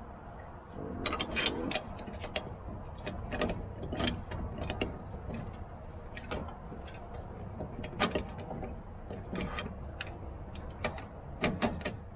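Irregular metallic clicks and clanks from a jon boat's transom launch wheel bracket and its pins being handled and worked.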